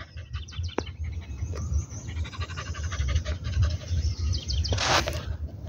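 A dog panting as it walks, with small birds chirping in the background and a low rumble of wind on the microphone. There is a brief rush of noise about five seconds in.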